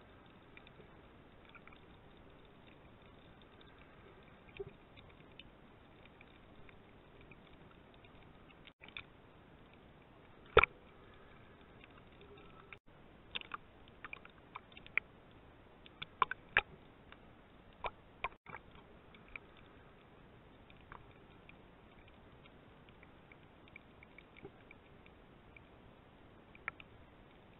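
Muffled underwater recording through a camera's waterproof housing: a faint steady hiss with scattered sharp clicks and knocks, the loudest about ten seconds in and a quick run of them a few seconds later.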